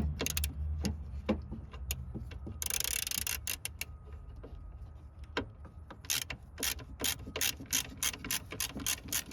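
Hand ratchet clicking as it is worked back and forth, backing out a 10mm bolt, with scattered clicks at first and a steady run of about three to four clicks a second from about six seconds in. A short hiss comes about three seconds in.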